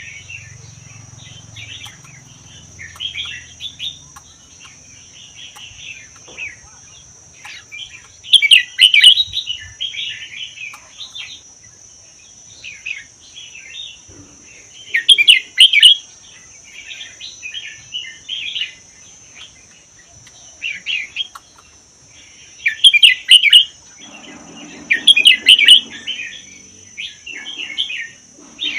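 Red-whiskered bulbul singing: loud bursts of quick chirping phrases every few seconds, with softer chirps between, over a steady high-pitched whine.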